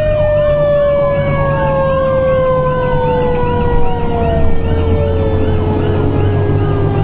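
Pierce Enforcer fire engine running code, heard from inside its cab: one siren yelps in rapid up-and-down sweeps of about three a second while a second long siren tone slowly falls in pitch, over the steady drone of the truck's engine.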